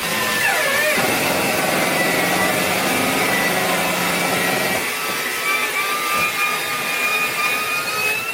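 A motor-driven machine running steadily: a rushing noise under a high whine, which drops sharply in pitch about half a second in and then holds.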